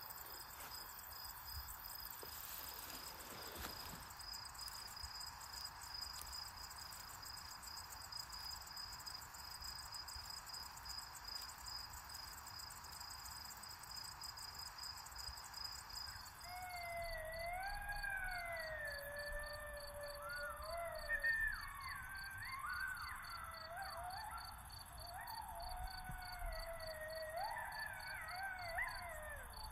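Crickets chirping steadily. From a little past halfway, wavering, gliding pitched tones join over the chirping.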